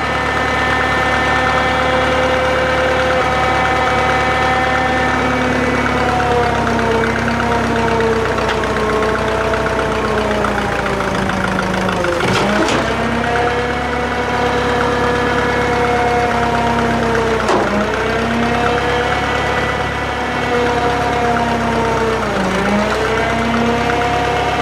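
Drott 85RM2 crane's engine running steadily. Its pitch sags and recovers several times, with three sharp dips about five seconds apart, as the crane works through the lift.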